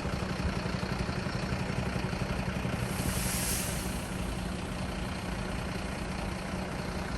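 Heavy vehicle engine idling steadily, with a brief hiss about three seconds in.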